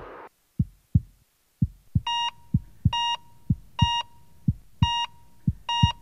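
Heartbeat thumping in close lub-dub pairs. About two seconds in, a hospital heart monitor starts beeping at about one high beep per second, keeping time with the heartbeat.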